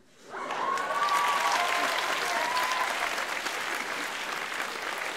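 Theatre audience applauding, breaking out suddenly about a third of a second in and holding steady, with a voice whooping over the clapping for the first few seconds.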